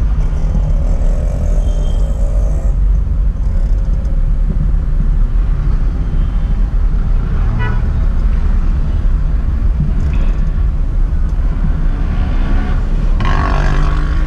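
Mitsubishi Lancer A172's engine running at low speed in slow street traffic, heard from inside the cabin. A vehicle horn toots briefly near the end.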